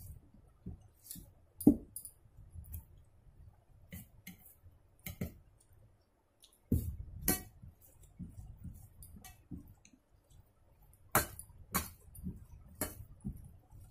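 Stainless steel plate and small steel bowl clinking now and then, about half a dozen sharp clinks, as rice is mixed by hand on the plate and curry is poured from the bowl. Soft handling noise of the rice and fingers runs between the clinks.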